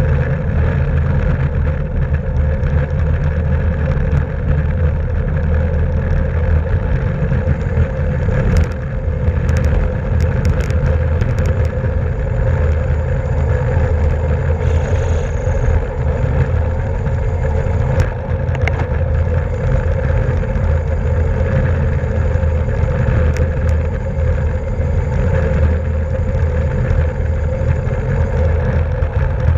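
Steady wind rush and road noise on a bicycle-mounted camera's microphone while racing at speed in a criterium. A handful of short clicks come through in the middle.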